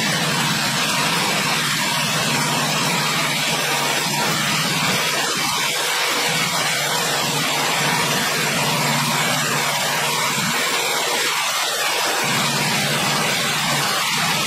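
Sawmill running: a steady, loud machine noise with a low hum underneath and a hiss, unbroken throughout.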